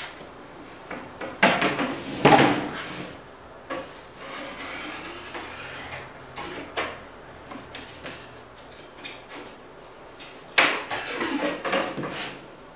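A thin wooden batten being handled and bent against a row of nails on a wooden lofting board to draw a fair curve: wood knocking and rubbing on the board, with two sharp knocks about a second and a half and two and a half seconds in, and a burst of knocks and clatter near the end.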